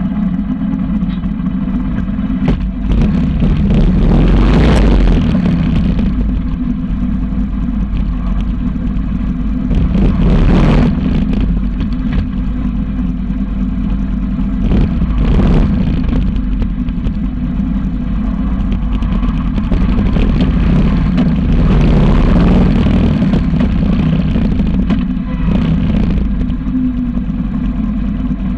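Motorcycle engine running steadily while under way, with the whole sound swelling briefly louder about five times.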